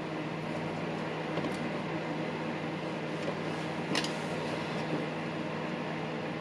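Steady low hum of workshop background noise, with one light click about four seconds in.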